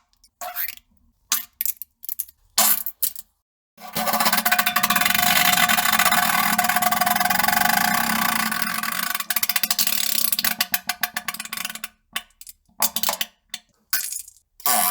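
Farting: a few short bursts, then one long fart of about eight seconds with a steady low buzzing tone, then more short bursts near the end.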